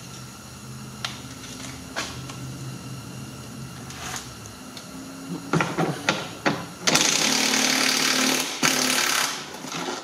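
Small cordless power tool with a 10 mm socket running in two bursts of about three seconds in all, near the end, as it unscrews a bolt from a car door's inner panel. Before that come light clicks and knocks of handling.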